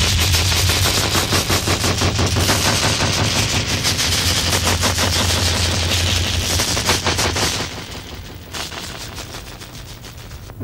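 A loud, rapid rattle of sharp cracks over a low hum, many a second, thinning out and fading after about seven or eight seconds.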